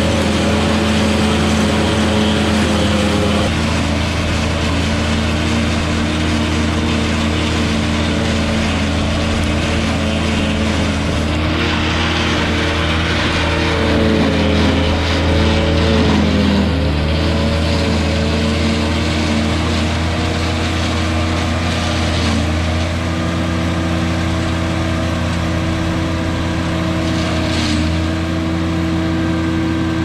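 Engine of a Lebanon silage processor running steadily while it chops corn. Its pitch sags briefly about halfway through and recovers, then drops near the end.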